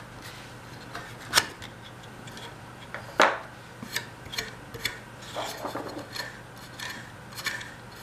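Metal clicks and taps of small hand tools, a screwdriver and a small socket ratchet, against a vacuum cleaner motor's metal fan and its retaining nut. Two sharp clicks come about one and a half and three seconds in, followed by a run of lighter, irregular clicks.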